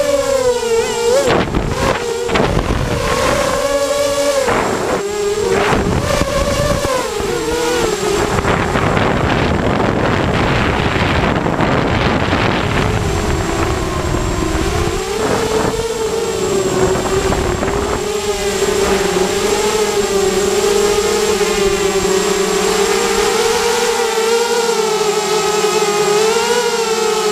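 Hexacopter's motors and propellers running with a steady buzzing pitch that wavers up and down as the throttle is worked. Rough wind noise buffets the microphone through the first several seconds.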